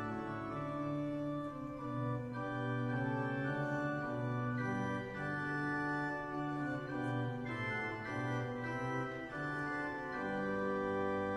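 Church organ playing the postlude at the close of the service: held chords that move from one to the next about every second, over sustained low notes.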